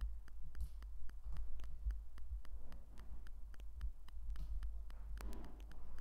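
Plastic Lego pieces being handled and pressed together: many small, irregular clicks, with dull low bumps from the table.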